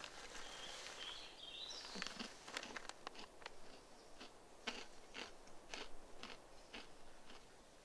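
Quiet footsteps of a hiker walking, each step a short crunch, about two steps a second.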